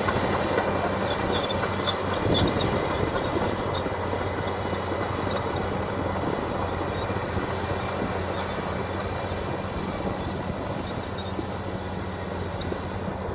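LiuGong B230 crawler bulldozer running, a steady engine drone under the clatter of its steel tracks, slowly getting quieter.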